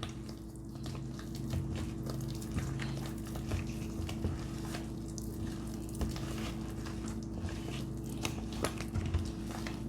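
Thick pounded yam flour and water dough being stirred and mashed by hand, with soft irregular squelches and clicks against the dish, over a steady low hum.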